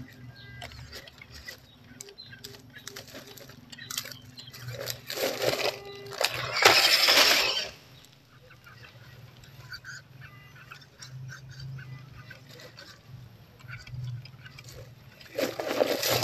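Crackling and rustling of dry leaves and dirt, with many small clicks. There are two louder rushes of noise, one about six to seven seconds in and one near the end.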